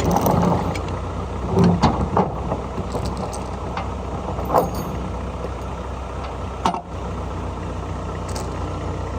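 Case 580B backhoe's engine running steadily, with a few short knocks and clanks over it, the first around two seconds in.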